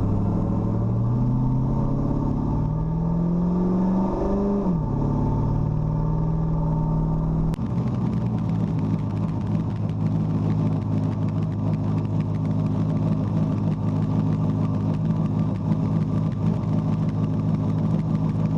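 Car engine pulling hard through a gear, its pitch rising for about four seconds, then dropping sharply at a gear change. After a sudden break it runs at a steady pitch at cruise.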